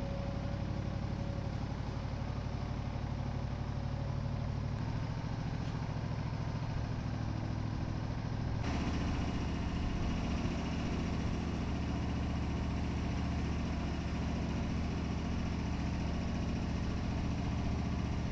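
Wood-Mizer LT40 portable band sawmill running steadily between cuts, its engine note shifting about nine seconds in.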